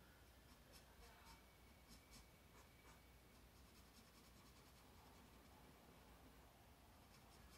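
Faint scratching of a felt-tip marker colouring on sketchbook paper: short back-and-forth strokes, most of them in the first three seconds.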